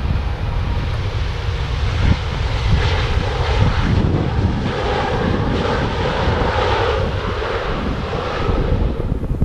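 Airliner engines passing by, the noise swelling to a peak about halfway through and easing off toward the end, over a low rumble of wind on the microphone.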